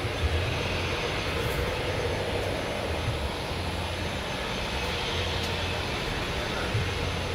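Dassault Falcon 8X business jet's three tail-mounted turbofan engines running steadily as the jet rolls along the runway.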